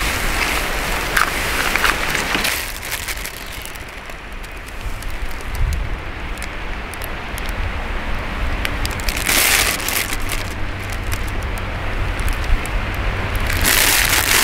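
Plastic bags and food packaging crinkling and rustling as they are handled, with scattered sharp clicks and two louder rustling spells, one about nine seconds in and one near the end, over a steady low rumble.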